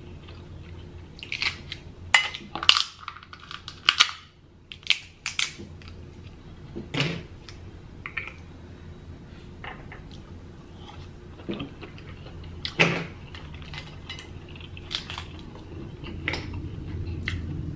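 Dungeness crab shells cracking and snapping as the legs are broken open by hand, a string of sharp, irregular cracks and clicks with quieter handling of shell and meat between them. A low rumble, thunder, grows under it near the end.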